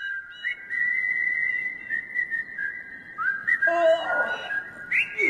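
A whistled tune of long held notes stepping between a few pitches, with a man's stretching yawn about four seconds in.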